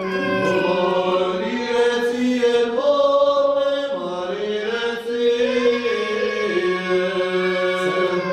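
Orthodox liturgical chant: sung in long held notes that step slowly up and down in pitch, without pause.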